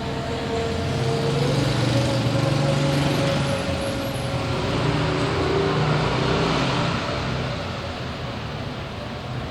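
Road traffic with vehicle engines humming as they pass, swelling twice and easing off near the end.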